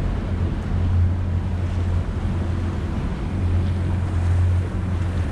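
A boat's engine running steadily at low speed, a low hum, with water washing along the hull and wind buffeting the microphone.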